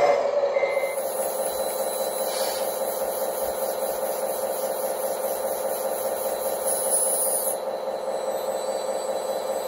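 A steady electric hum from the radio-controlled timber trailer's hydraulic loader crane as its boom is raised.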